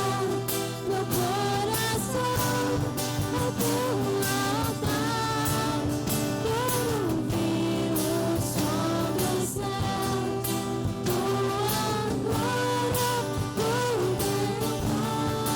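Church worship band playing a Portuguese-language worship song, with voices singing the melody over sustained keyboard or guitar chords and drums keeping a steady beat.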